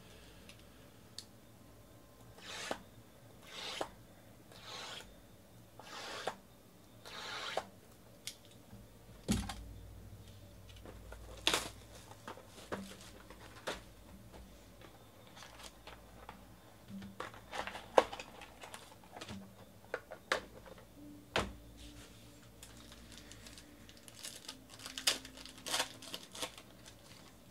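Hands unpacking trading card boxes. First a run of five short tearing swishes, then scattered clicks and knocks of cardboard. Near the end comes the crinkle of a foil card pack being torn open.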